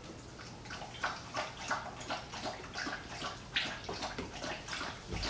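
Someone eating vegetable soup from a bowl with a spoon: an irregular run of short, wet sloshing and sipping sounds, several a second, as the spoon scoops through the chunky soup and it is sipped.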